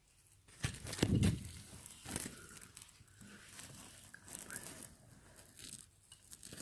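Irregular rustling and crinkling handling noises with scattered clicks, and a heavier thump about a second in.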